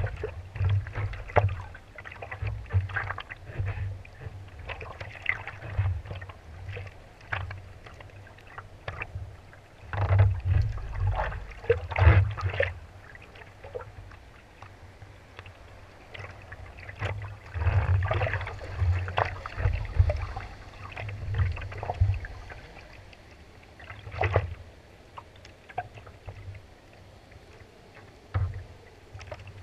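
Small swells lapping and slapping against a floating longboard close to a camera mounted on its nose, with irregular sloshing splashes over a deep rumble. Louder clusters of slaps come about ten to twelve seconds in, around eighteen to twenty seconds, and again near twenty-four seconds.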